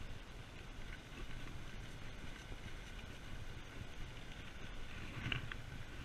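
Steady low rumble of a mountain bike rolling along a paved road, with wind on the handlebar-mounted GoPro's microphone, and a few light clicks about five seconds in.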